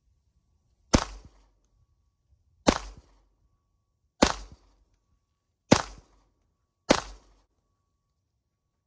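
Five pistol shots fired one at a time in slow, aimed fire, about one and a half seconds apart, each trailing off in a short echo.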